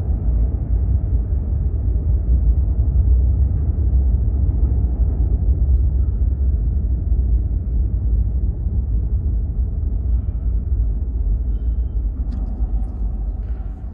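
R160 subway train running with a heavy, steady low rumble that eases off near the end, with a few light clicks.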